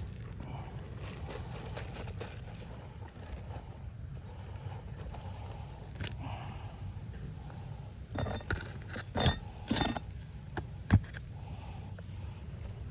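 Light clinks and scrapes of roofing tools and shingles being handled during a shingle repair, over a steady low rumble. A cluster of sharp clicks and scrapes comes about eight seconds in, ending with one sharp click near eleven seconds.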